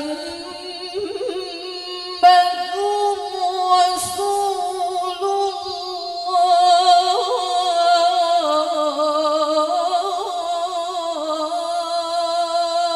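A woman reciting the Qur'an in the melodious tilawah style: one long, unbroken phrase drawn out on held notes with a wavering, ornamented pitch.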